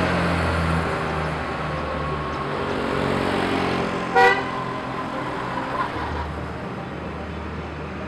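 Road traffic passing, with engines running, and a single short vehicle horn toot about four seconds in.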